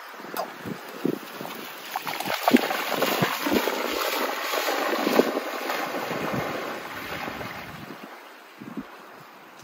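Golden retriever splashing into a lake and paddling out, the water churning loudest a few seconds in, then fading as she swims away from shore.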